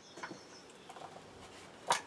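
Birch log splitting under a levered froe: faint creaks and crackles from the wood, then one sharp crack near the end as the fibres tear apart.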